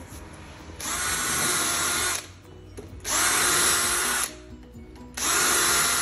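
Makita cordless drill-driver driving screws into a steel door hinge, in three steady runs of a second or so each with short pauses between.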